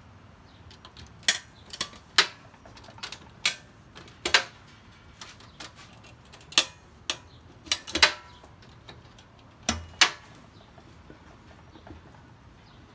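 Stainless steel lid being set and worked into place on a stainless steel still pot: about a dozen irregular sharp metal clicks and clanks, a few of them ringing briefly.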